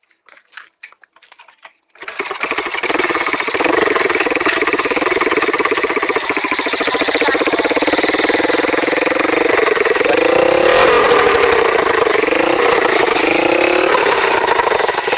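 Engine of a homemade farm vehicle starting about two seconds in, after a few light clicks, and running loudly with a rapid firing beat. Its speed rises and falls several times in the second half.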